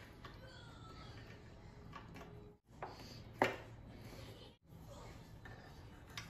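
Light handling clicks and knocks of parts and wires being fitted into an electric scooter's aluminium deck, with one sharper knock about three and a half seconds in. A faint steady hum lies under it, and the sound cuts out briefly twice.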